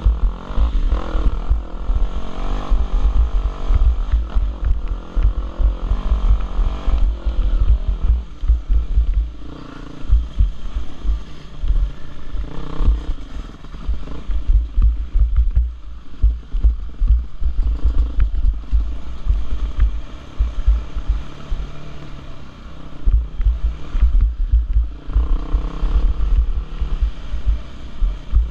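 Dirt bike engine revving up and down over and over while climbing a rough trail, over a heavy low rumble.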